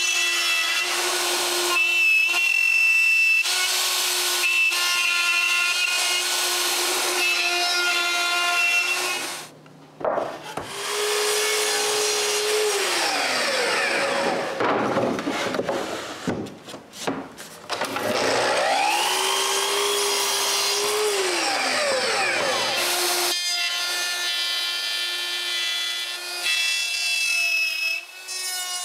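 Power tools cutting dovetails in pine drawer sides. A machine runs with a steady hum, stops about nine seconds in, then twice speeds up, runs briefly and winds down, before the steady running comes back.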